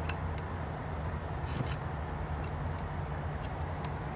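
Pliers clicking against the rim of a 5-gallon resin pail as the tear tabs of its lid are pried open: a few sharp, irregular clicks. A steady low drone runs underneath.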